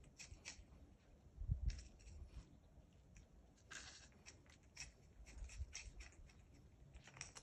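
Cat gnawing at a razor clam: faint, crisp clicks and scrapes of teeth on the thin shell, irregular throughout, with a longer scrape about four seconds in and a few soft low bumps.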